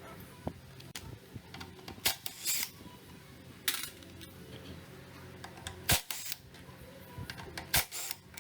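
Irregular sharp clicks and knocks of hand tools and metal parts being handled during brake work on a scooter, with a few short scraping sounds. The loudest knocks come about six and eight seconds in.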